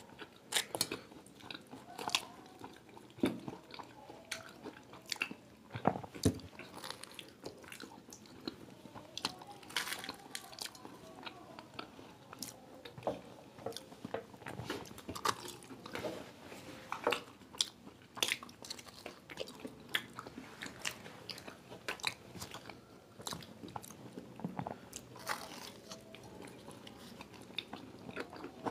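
Crunching and chewing of fried samosas: their crisp pastry crackles as it is bitten and torn apart, in irregular crunches throughout.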